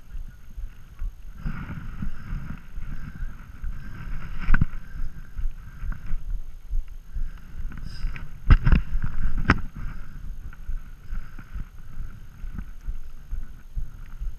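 Wind buffeting a body-worn camera's microphone, an uneven low rumble, with a few sharp knocks around the middle.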